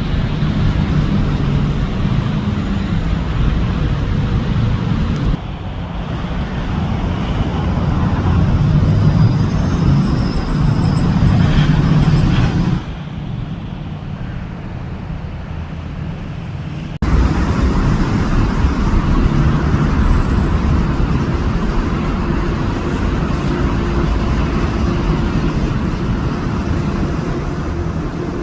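Road traffic noise: a steady mix of engines and tyres on the road, strongest low down. It jumps abruptly to a different level about five seconds in, again near thirteen seconds and again near seventeen seconds.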